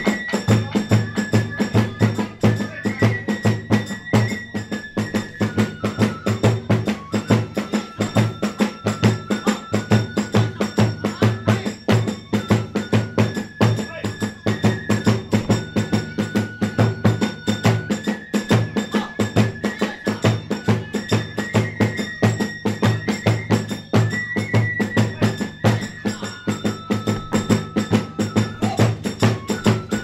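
Kagura festival music: a taiko drum and hand cymbals beating a fast, steady rhythm under a high bamboo flute melody of held notes that step up and down.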